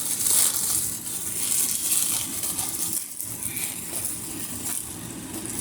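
Plastic packaging rustling as it is handled, an uneven crackly hiss.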